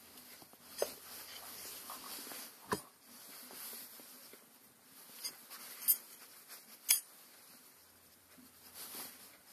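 Hands working a Massey Ferguson Multi Power input shaft into its cast housing: a handful of sharp metallic clicks and knocks as the parts touch, with soft rustling of hands and clothing in between.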